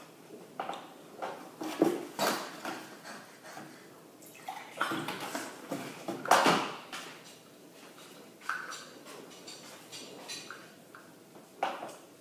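Irregular sharp breaths, gasps and drinking noises of someone whose mouth is burning from a very hot chilli, with a glass handled and set down on the table.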